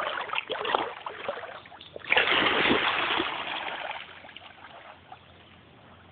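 A smooth collie splashing through shallow lake water: choppy splashes at first, a loud burst of splashing about two seconds in as it bounds forward, fading as it moves off into deeper water and swims.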